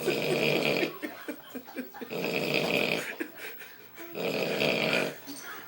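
A person snoring loudly in three long, rasping snores about two seconds apart.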